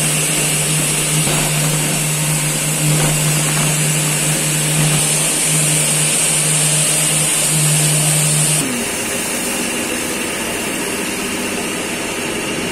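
Ribbon blender running as it mixes milk powder: a steady mechanical drone with a low hum and a high hiss. About two-thirds of the way through, the low hum stops and the running noise gets a little quieter.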